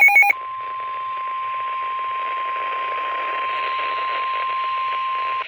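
Emergency alert tones received over the radio: a loud pulsing electronic signal cuts off in the first moment, then the National Weather Service's single steady warning alarm tone near 1,000 Hz holds for about five seconds over radio hiss and stops just before the end. The tone announces a severe thunderstorm warning.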